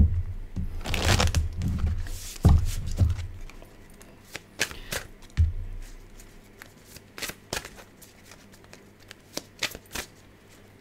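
Oracle cards being shuffled and handled: a loud rustling with low thumps for the first few seconds, then scattered light clicks and taps.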